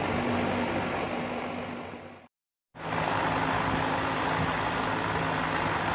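Electric fan running steadily with a low hum. The sound fades and drops out for a moment about two seconds in, then comes back the same.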